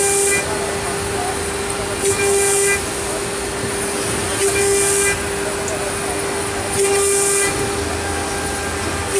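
CNC router spindle whining steadily while drilling a row of holes in sheet metal. About every two and a half seconds the cutter plunges into the sheet, and each plunge brings a louder, hissing cut lasting half a second to a second, four times in all.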